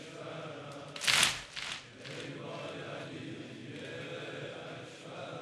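A congregation of mourners beating their chests in unison during a Shia Muharram lament: two sharp slaps about half a second apart, roughly a second in, over the low murmur of the gathering.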